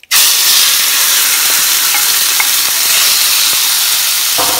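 Raw diced chicken breast dropped into a hot, well-oiled pan of flash-fried spices, setting off a loud sizzle that starts all at once and holds steady. A few light knocks of a wooden spoon come near the end.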